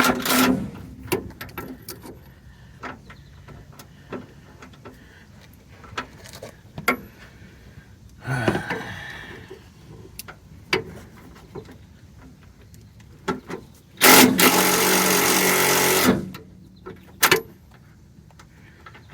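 Metal tools clinking and tapping on the idler arm's mounting bolts, then about fourteen seconds in a power tool runs loudly and steadily for about two seconds, running the bolts in.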